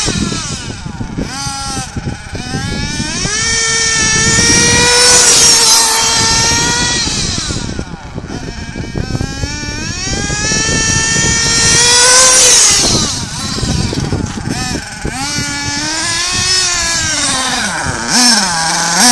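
HoBao Hyper 7 TQ2 buggy's .21 three-port two-stroke nitro engine at full throttle: a high-pitched buzz whose pitch climbs and falls again and again as the throttle is opened and closed. It is loudest about five and twelve seconds in.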